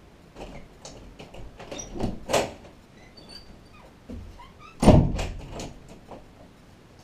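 A run of knocks and bumps with a few short squeaks, and one loud thump about five seconds in: someone moving about and handling things near the desk.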